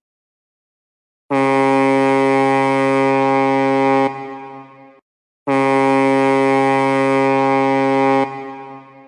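Ship's horn sounding two long, steady blasts of about three seconds each, a short gap apart, each trailing off as it echoes away.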